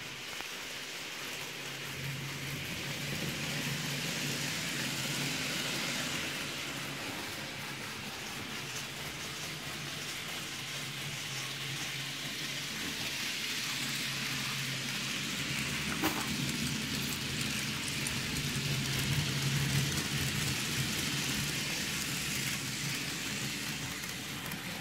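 Model trains running on the layout's track: a steady rushing rattle of small wheels on the rails over a low electric-motor hum, swelling and easing a little as the trains pass. One sharp click about sixteen seconds in.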